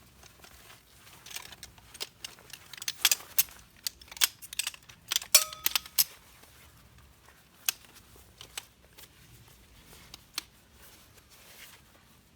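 Small hard objects being handled: a run of sharp clicks, clinks and rattles, densest in the first half, with one short ringing note about five and a half seconds in.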